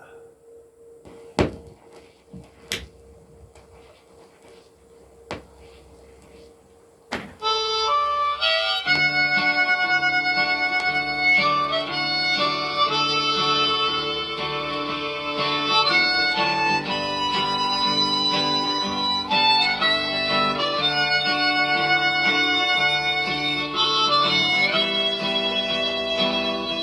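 Playback of a freshly embossed clear Lexan disc cut with a new tungsten stylus. A few sharp clicks sound over a faint steady tone as the disc is cued up. About seven seconds in, the recorded song's instrumental intro starts and plays on loudly.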